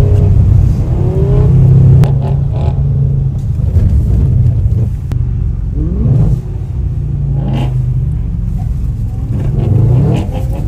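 BMW E9x M3 V8 engines running hard, heard from inside one of the cars, with the engine note rising in quick revs twice past the middle.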